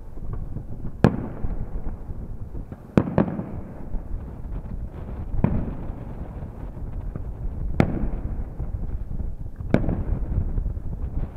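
Aerial firework shells bursting: a sharp bang every second or two, about seven in all, each trailing off in rolling echo over a steady low rumble.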